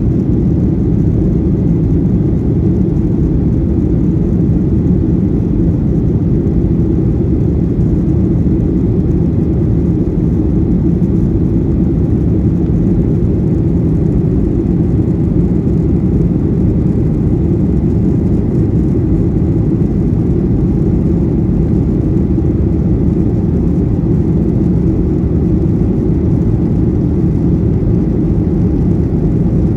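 Steady low rumble inside an airliner cabin in flight: jet engine and airflow noise, unchanging throughout, with a faint steady high whine.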